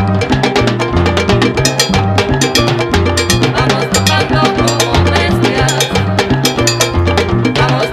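Salsa band playing an instrumental passage: a repeating bass line under dense, driving percussion, with no singing.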